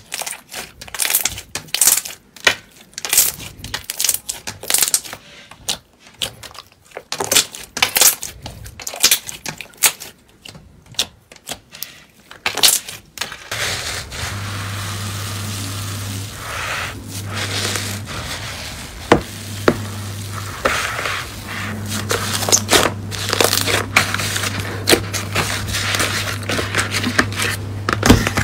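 Slime being squeezed and pressed by hand, making a quick run of sticky clicks and crackling pops. About halfway through, the slime changes to a fluffy white batch in a plastic bowl, and the crackle becomes a steadier hiss over a low hum.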